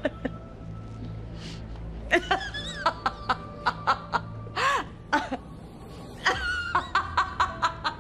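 A woman laughing in repeated bursts, starting about two seconds in, pausing briefly, then breaking out again near the end, over quiet background music. It is a nervous fit of laughter: her nerves have given way.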